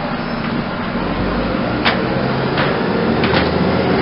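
Busy city street traffic with a double-decker bus engine running close by, its low rumble swelling about a second in. A few sharp clicks sound near the middle and later, from a hire bike being handled in its docking stand.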